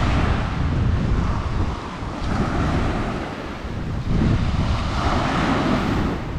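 Ocean surf breaking and washing up a beach, the hiss swelling with each wave three times over a steady low rumble; the longest surge comes in the second half.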